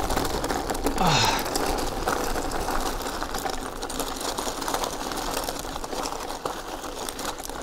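Bicycle rolling over a rough gravel road: tyres crunching and skidding on loose stones and the bike rattling, a steady dense rattle of fine rapid clicks. A short exclamation about a second in.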